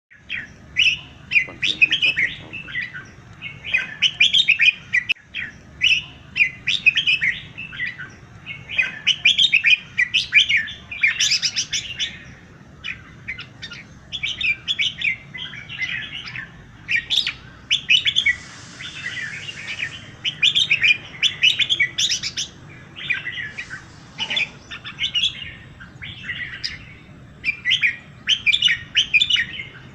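Many birds chirping and singing together in a dense morning chorus of quick, overlapping chirps that never stop. A brief high hiss sounds a little past the middle.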